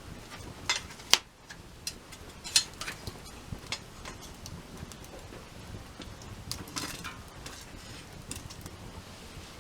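Wood fire crackling, with irregular snaps and pops, the sharpest about a second in.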